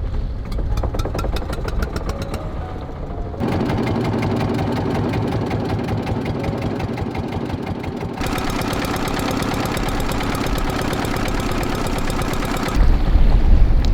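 A small engine running steadily with a rapid, even beat, its sound changing abruptly twice as shots change. Near the end a louder low rumble comes in.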